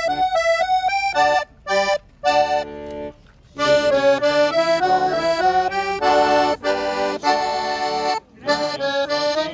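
Piano accordion playing a melody over chords, breaking off briefly a few times between phrases.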